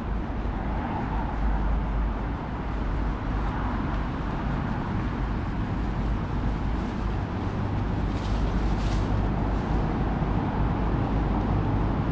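City street traffic noise: a steady wash of road noise with a low engine rumble. A deeper hum joins about seven seconds in, and a couple of brief swishes come shortly after.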